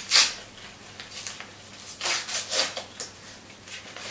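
Wrapping paper rustling and crinkling as a gift is unwrapped by hand, in short bursts: once at the start and twice more about two seconds in.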